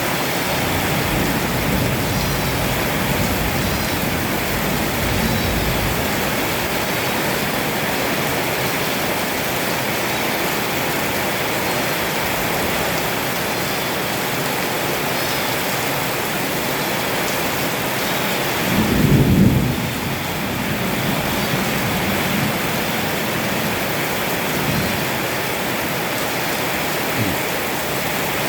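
Heavy rain pouring steadily, with low thunder rumbling in the first few seconds and a short, louder thunderclap about two-thirds of the way through.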